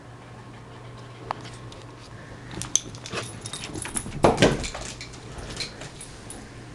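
A small dog scrambling after a toy: a flurry of quick knocks and clicks starting about two and a half seconds in, loudest with a dull thump and rattle at about four and a half seconds.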